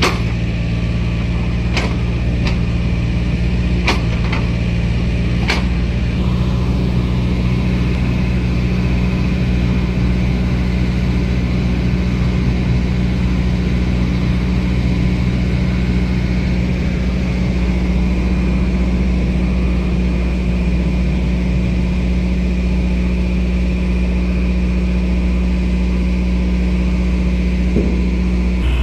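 Heavy diesel engine running steadily at a constant speed, with a few sharp clanks in the first six seconds.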